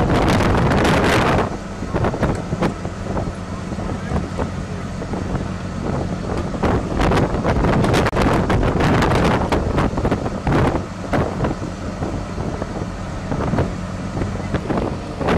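Strong wind buffeting the microphone in gusts, louder in the first second or so, over a steady low machinery hum.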